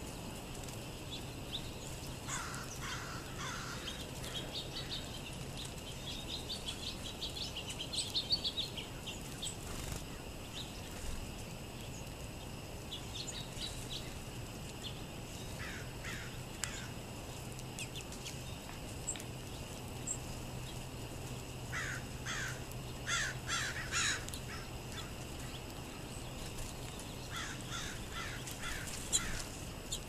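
Small songbirds, sparrows feeding at a seed pile, giving short high chips and calls in scattered clusters, busiest about three-quarters of the way through. A steady faint high tone runs underneath.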